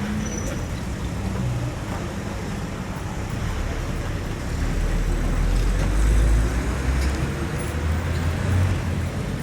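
Road traffic on a main road: the steady rush of passing cars. One vehicle passes close, growing louder from about four and a half seconds in, loudest around six seconds, then fading.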